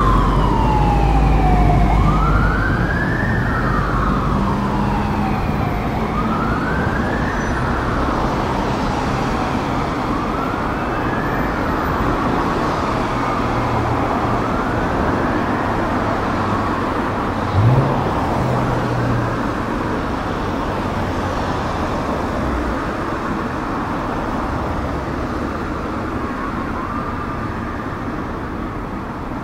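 Fire engine's wail siren rising and falling about every four seconds, growing fainter as the truck drives away, over city traffic noise.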